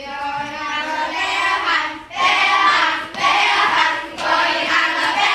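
A group of children's voices singing together in unison, in phrases of about a second each.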